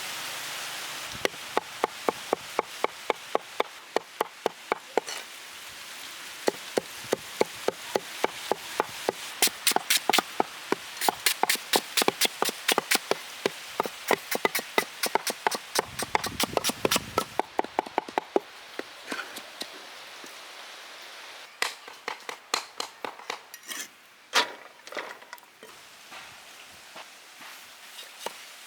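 Knife repeatedly chopping boneless chicken on a board to mince it into keema, in quick even strokes of about three to four a second, then slower, scattered chops near the end.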